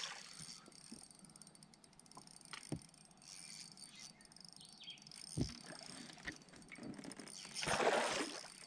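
Quiet open-water ambience with faint bird calls and a few light knocks, then a noisy splash near the end as a hooked fish thrashes at the side of the boat while it is being landed.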